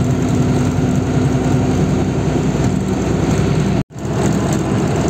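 Truck engine running at cruising speed, heard from inside the cab with road noise. The sound cuts out for a split second near the end, then resumes.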